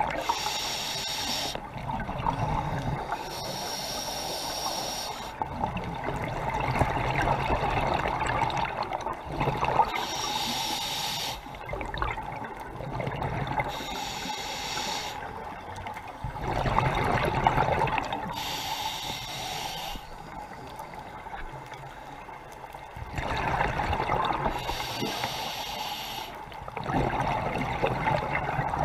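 Scuba diver breathing underwater through a regulator: a hissing inhale of about a second and a half, then a rumbling rush of exhaled bubbles. The cycle repeats six times at slightly irregular intervals.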